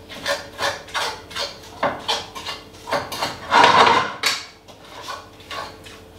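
A utensil stirring beef mince in a cooking pan: repeated scrapes and clacks of the spoon against the pan, about two to three a second, with one longer, louder scrape near the middle, then fewer strokes towards the end.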